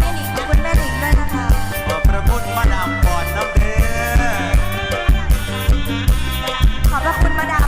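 Isan lam band music: a drum kit keeps a steady, even beat under a melody line that slides and bends in pitch.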